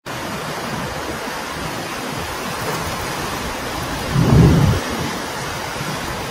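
Heavy rain and hail pelting down in a severe thunderstorm: a steady, dense hiss. About four seconds in there is a brief low rumble that is louder than the rest.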